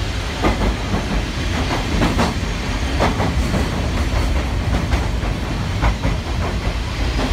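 Sagano Scenic Railway sightseeing train running through a tunnel, heard from inside the carriage: a loud, steady rumble of wheels on rail with irregular clacks.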